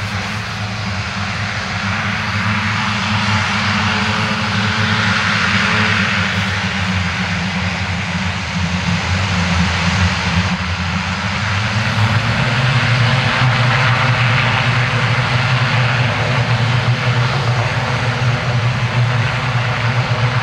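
Twin Garrett TPE331 turboprop engines of a Fairchild Swearingen Metro 23 with five-blade propellers, running at power while the aircraft stands on the runway before its take-off roll. A steady propeller drone with turbine hiss; about halfway through, the drone's pitch shifts and it grows a little louder.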